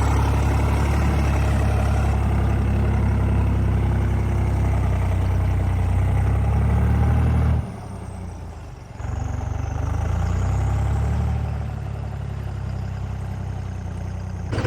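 Diesel farm tractor engine running hard in mud. About halfway through it drops back sharply for a second or so, then picks up again and settles to a lower, steady run.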